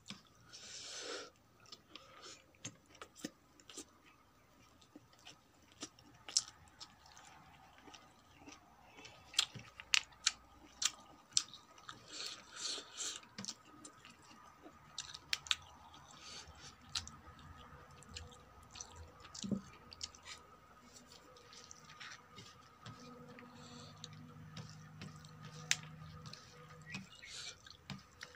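Close-miked chewing of a mouthful of rice and vegetables, with frequent sharp crunches and wet mouth clicks at irregular intervals.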